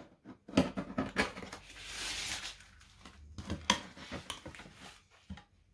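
A knife prying up the plywood lid of a wooden crate packed in styrofoam, and the lid being lifted: several sharp knocks and clicks, with a rough scraping rub about two seconds in.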